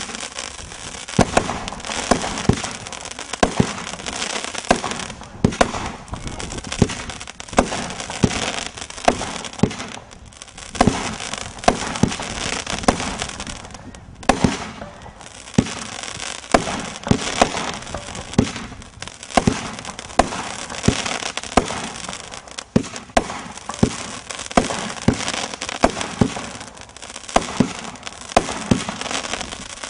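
Blonde Joke multi-shot consumer fireworks cake firing in a steady series, about one shot a second: each launch thump and burst is followed by dense crackling from its crackling-tail stars.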